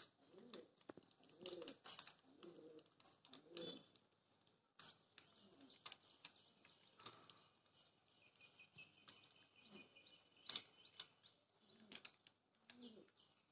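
Pigeons cooing softly, a run of rolling low coos over the first few seconds and again near the end, with scattered sharp clicks and faint high chirps in between.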